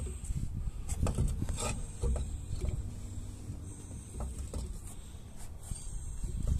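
Steel wheel-dolly adapter plate knocking and scraping against a car's wheel hub and studs as it is turned by hand to line up the bolt holes, with a few sharp knocks in the first couple of seconds over low rumbling handling noise.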